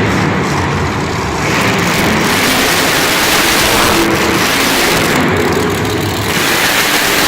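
Monster truck engine running loud and steady, its pitch rising and falling as it revs.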